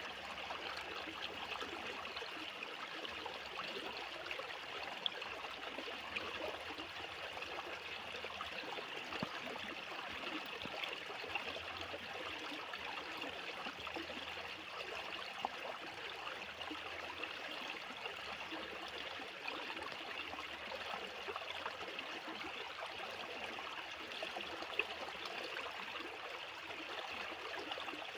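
Fast-flowing water rushing steadily, with a few faint splashes.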